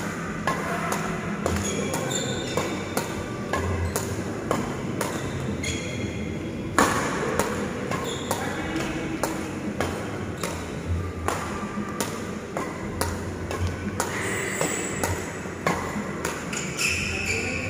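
Badminton rackets striking shuttlecocks in a fast feeding drill, a sharp crack about every second, over background music.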